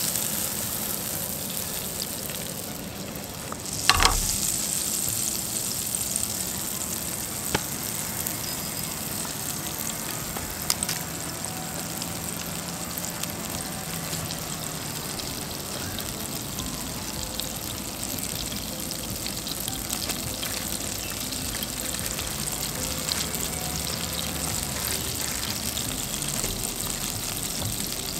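Garlic-basil butter and olive oil sizzling steadily in a frying pan over a canister camp stove. A single sharp knock rings out about four seconds in, and a couple of faint clicks follow later.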